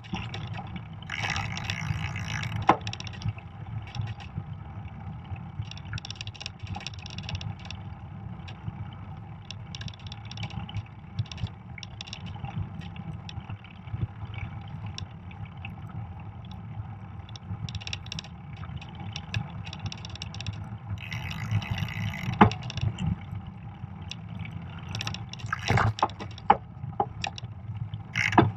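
Fat bike riding on a snowy trail: a steady low rumble from the fat tyres rolling over packed snow and the bike shaking on the trail, with a few short bursts of hiss and several sharp knocks as it goes over bumps.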